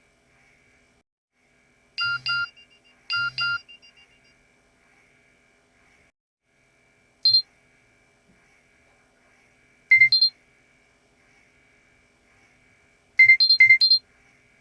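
Nokia 6820 mobile phone's speaker playing short electronic beep tones with pauses between them: two double beeps, then a single beep, another double beep and a quick run of about five beeps near the end. A faint steady high whine runs underneath.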